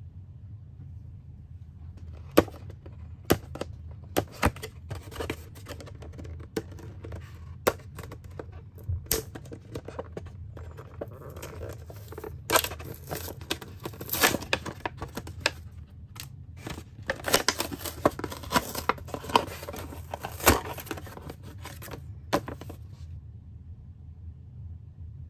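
Clear plastic packaging being crinkled and torn open by hand, with sharp clicks and crackles scattered from about two seconds in until near the end, over a low steady hum.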